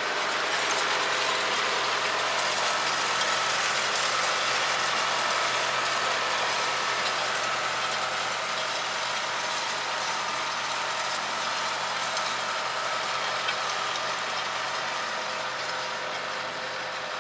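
Massey Ferguson 3070 tractor running steadily at slow working speed, with the steel tines and frame of a Nicholson scruffler rattling continuously as they are dragged through the soil.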